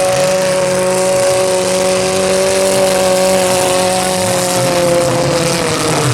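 Compact demolition-derby car engines running hard at high revs, a steady pitched drone that sags slightly in pitch near the end.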